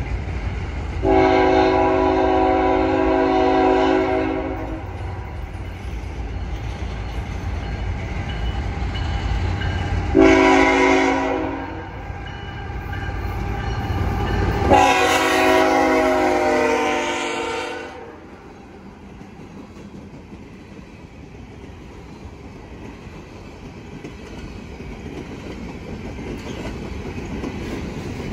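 Horn of a GE ET44AC diesel freight locomotive, several chime tones together, sounding three blasts over the locomotive's low rumble as it approaches: a long blast, a short one, then another long one. The horn stops about two thirds of the way through. Freight cars then roll by with a steady rumble and wheel clatter that grows louder toward the end.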